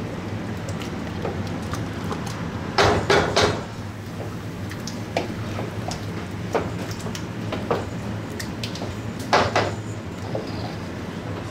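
Long metal spoon scraping and clanking against large aluminium stockpots as thick curry is stirred, with three loud clanks in quick succession about three seconds in and another near the end, over the steady low hum of a kitchen extractor hood.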